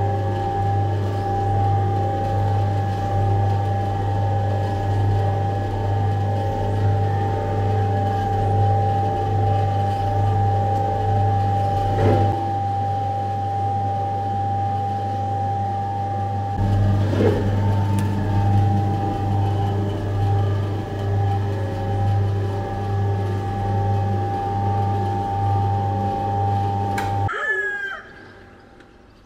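Electric spiral dough mixer running, its motor a steady hum with a high whine as the hook kneads a large batch of bread dough. Two brief knocks partway through, and the sound cuts off suddenly near the end.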